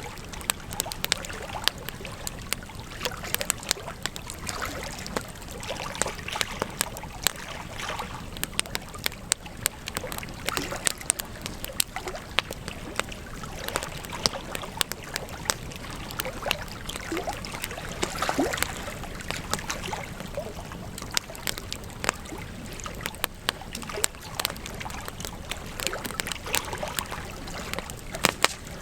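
Wood campfire crackling, with frequent irregular sharp pops and snaps over a steady low rush of burning.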